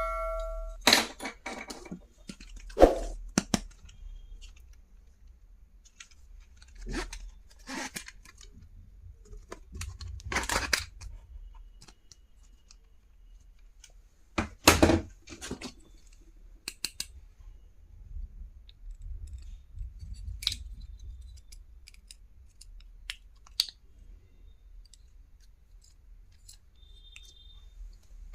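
Irregular handling noises from unboxing stationery: packaging rustling and crinkling, with short clicks and knocks of items being picked up and set down, a louder rustle about ten seconds in and a sharp knock near fifteen seconds.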